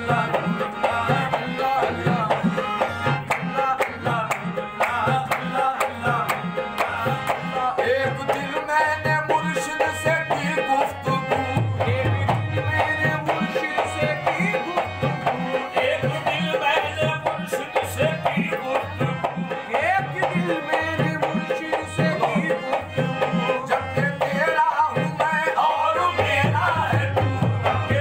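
Qawwali-style devotional music: a harmonium playing held chords and melody under a man's singing voice, over a steady hand-drum beat.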